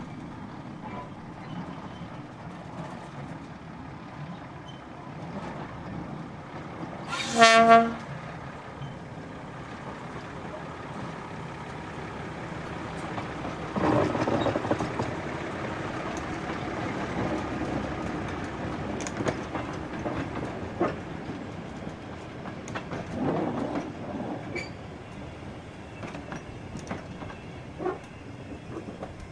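Brill Model 75 railcar giving one short horn blast about seven seconds in. About halfway through, the two-car railcar set comes past running, its wheels clicking over the track.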